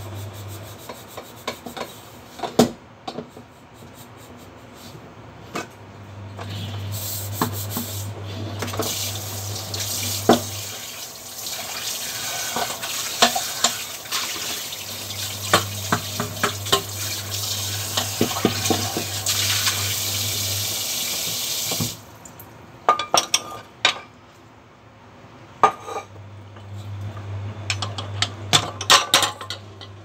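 Kitchen tap water running into a stainless steel sink for about twelve seconds in the middle, then shut off suddenly, while a metal pot and a knife clink and knock against the sink and counter. A low hum comes and goes in the background.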